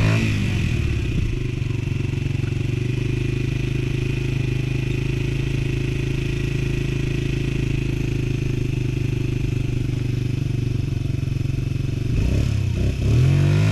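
Small engine of a Kawasaki 50 youth ATV running under throttle as it works through a snow rut. It revs up and falls back around the start, holds a steady drone through the middle, and revs up and down again a little before the end.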